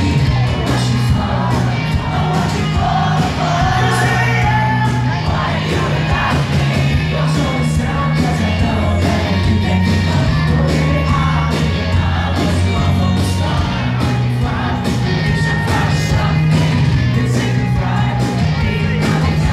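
Live band playing loudly with a singer, heard from amid the concert crowd, with heavy bass and drums.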